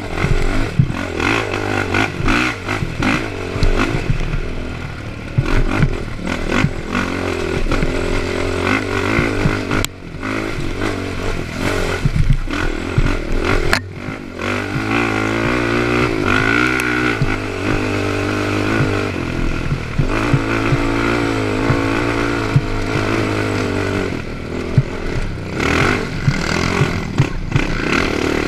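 Honda TRX450ER quad's single-cylinder four-stroke engine revving up and down hard under race throttle, with clattering knocks from the machine crashing over bumps. The engine drops off briefly twice, about ten and fourteen seconds in.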